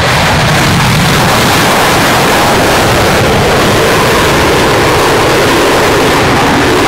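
Eurofighter Typhoon's twin EJ200 turbofans in full afterburner during takeoff and a steep pull-up: loud, steady jet noise, with a faint tone in it slowly dropping in pitch near the end as the fighter climbs away.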